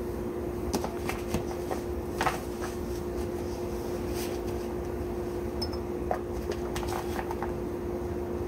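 A few small clicks and taps of butternut squash seeds dropped by hand into a glass bowl, most of them in the first couple of seconds and one more about six seconds in, over a steady mechanical hum of a kitchen appliance.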